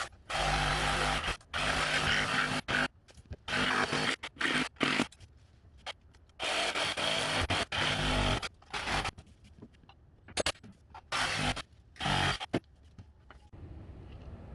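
Oscillating multi-tool plunge-cutting through wood and fence nails in a series of short cuts, each half a second to two seconds long, with brief pauses between.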